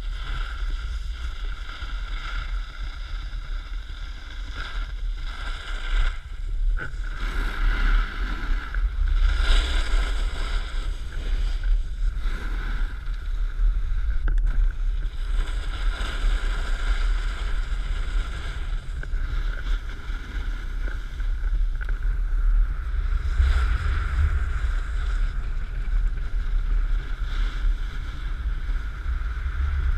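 Wind rushing over a pole-mounted action camera's microphone as a snowboard slides and carves across packed snow, a steady low rumble with a scraping hiss that swells several times.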